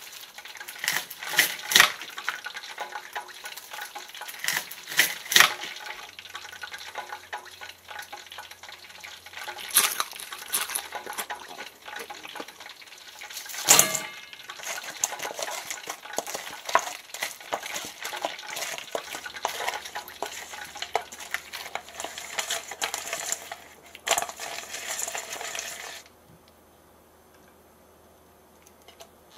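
Kitchen utensils scraping and clinking against cookware, with several sharp knocks; it stops about three seconds before the end.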